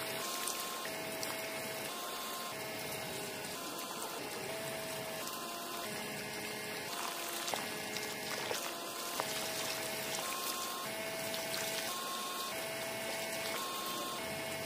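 A steady stream of water pouring and splashing from a thin hose fed by a miniature toy water pump. A soft background melody of stepped notes plays over it.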